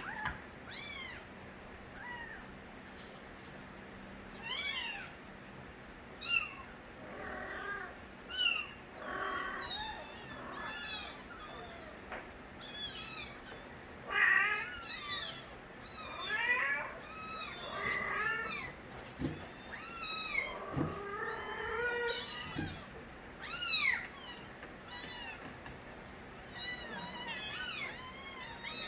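Several young kittens meowing loudly and repeatedly: short, high-pitched cries that often overlap one another.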